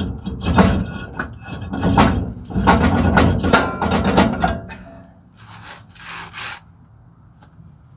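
Metal brake parts scraping and clattering under hand work on a truck's rear brake assembly: a rough run of strokes for about four and a half seconds, then two short rushing noises and a few light clicks.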